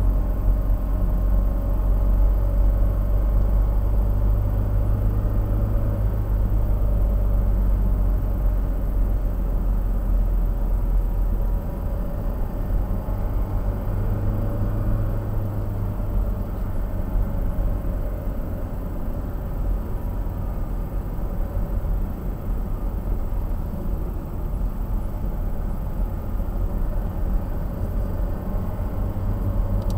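A car driving on a city street, heard from inside the cabin: a steady low engine and tyre rumble, a little quieter after about twelve seconds.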